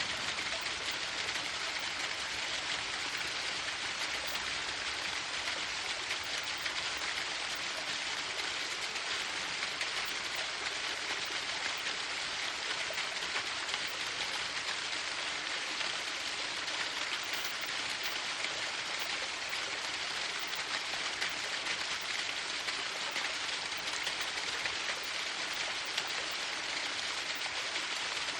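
Waterfall: water falling and splashing in a steady, unbroken rush, mostly hiss.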